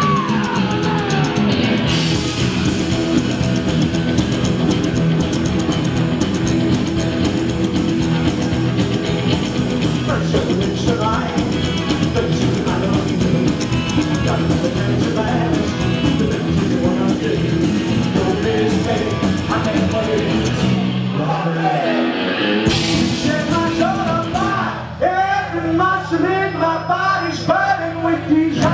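A rockabilly band playing live: upright double bass, electric guitar and drums, with a man singing. About three quarters of the way through, the drums drop out, leaving a guitar riff over a held low note. The full band comes back in near the end.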